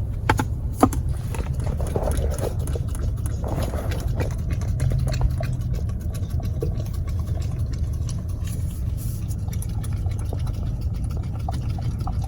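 Car engine idling, a steady low rumble, with a couple of sharp clicks about a second in.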